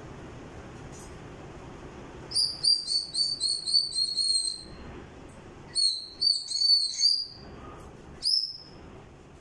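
African grey parrot whistling. A rapid run of short high whistled notes starts about two seconds in, a second burst follows a second later, and one last single whistle comes near the end.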